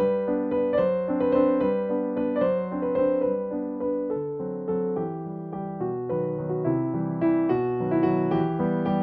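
Background music: a keyboard melody played as a run of separate piano notes.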